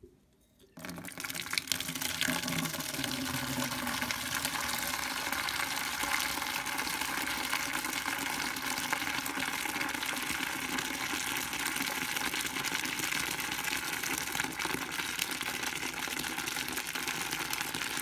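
Hot water from a steam boiler's drain pouring in a steady stream into a plastic bucket. It starts about a second in and runs steadily, the bucket filling with frothy, yellowish water: the boiler is being drained.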